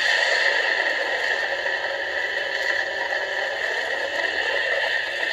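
Brickstuff light-and-sound kit playing the Millennium Falcon engine sound effect through its small speaker: a steady, even rushing engine noise that does not change.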